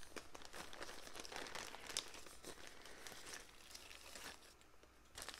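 Soft crinkling and rustling of a heart-print gift-wrap package being handled and opened by hand: a rapid run of small crackles that thins out near the end.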